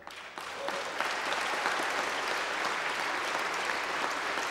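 A large audience applauding: many hands clapping that start about half a second in, swell, then hold steady.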